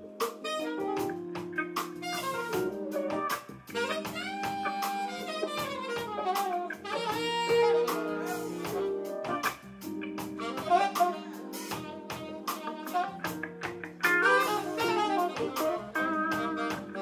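Live alto saxophone solo with a jazz band: the sax plays bending, sliding phrases over held chords, electric bass and a drum kit keeping time.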